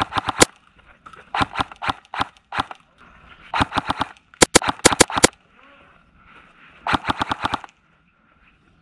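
Airsoft electric gun (Kingarms PDW AEG) firing quick strings of shots, about six volleys with short pauses between them, the loudest string about halfway through.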